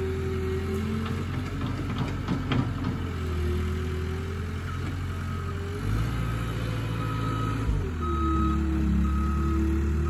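A loader's engine runs under load, its note shifting as the machine works. About halfway through, the backup alarm starts beeping steadily as it reverses. A few sharp knocks come about two seconds in.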